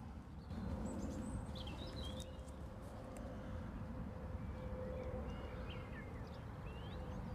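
Outdoor ambience: a steady low rumble with scattered short chirps from small birds and a faint steady hum.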